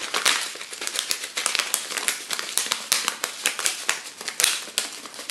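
A plastic packet of sesame seeds crinkling in the hand as the seeds are shaken out of it onto chicken pieces: a fast, irregular run of small crackles and ticks.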